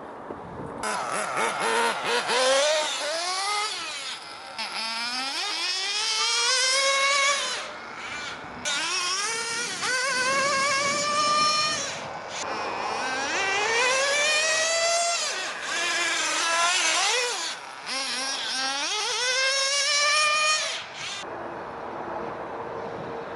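Nitro RC car glow engine accelerating over and over, its high-pitched whine climbing steeply each time before the throttle is lifted and the pitch drops, five or six runs in a row.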